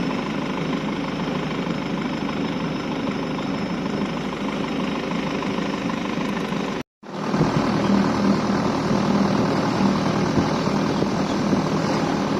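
Boat engine running steadily. It cuts out abruptly for a moment about seven seconds in, then comes back louder.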